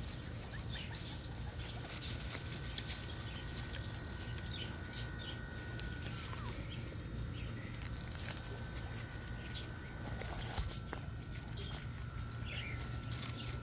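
Faint outdoor background with a steady low hum and scattered short, high chirps or squeaks.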